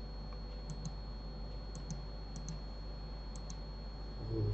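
Computer mouse clicks: about four quick press-and-release pairs spread through, over a faint steady electrical hum, with a brief low thump near the end.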